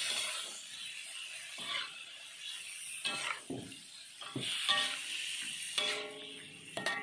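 Metal spatula scraping and knocking against an aluminium wok in a run of short strokes as tripe is stirred into fried spice paste, some strokes with a brief squeal. A light sizzle fades just after the start.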